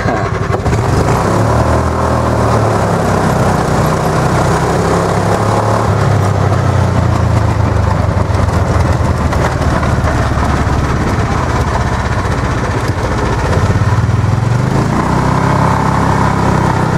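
Club Car golf cart's swapped-in Honda GX single-cylinder engine, governor bypassed, revving up at a full-throttle launch as the clutch engages, then running hard at high revs while the cart drives. The revs ease off briefly near the two-thirds mark, then rise again.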